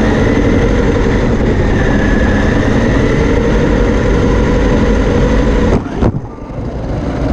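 The electric motor and drivetrain of a small autonomous RC car whine steadily, with tyre noise on carpet, as heard from a camera mounted on the car. About six seconds in there is a sharp knock as the car tips onto its side, and the sound becomes quieter and rougher.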